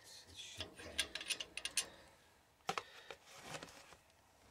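Faint clicks and scraping of metal parts as a gloved hand works the top of an oil burner's steel oil-line filter housing, thickest in the first two seconds, with one more click just under three seconds in.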